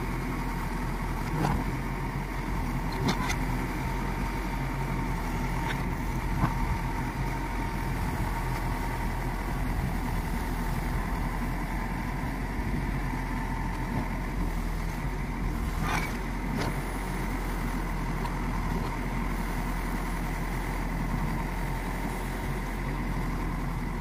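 JCB 3DX backhoe loader's diesel engine running steadily with a constant whine while the backhoe arm works in brush. A few sharp knocks stand out, most clearly about six seconds in and again around sixteen seconds.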